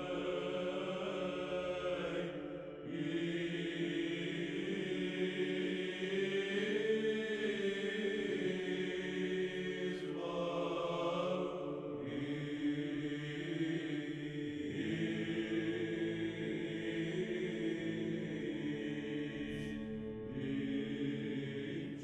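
A choir chanting slow, sustained church music, with long held notes in low voices and short breaks between phrases.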